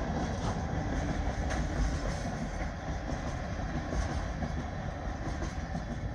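Freight train of insulated boxcars rolling past, steel wheels rumbling steadily on the rails with a few scattered clicks.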